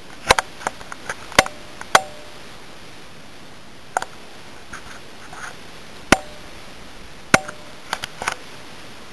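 A series of sharp, irregular clicks and knocks, a few with a brief ringing tone, in clusters near the start, in the middle and near the end, over a steady hiss.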